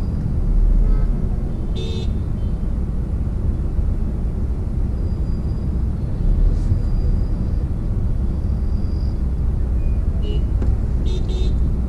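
Road traffic heard from inside a car stopped in a jam: a steady low rumble, with a short horn toot about two seconds in and a few more toots near the end.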